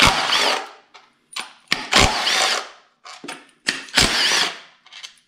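Milwaukee cordless impact tool spinning out the oil pan bolts on a Ford 5.0 Coyote V8. It runs in three short bursts about two seconds apart, each with a whine that rises and then falls, and short clicks come between the bursts.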